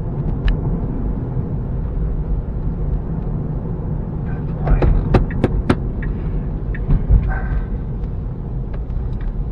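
Steady low road and tyre rumble inside the cabin of a moving Tesla electric car, with no engine note. A few short clicks come about halfway through.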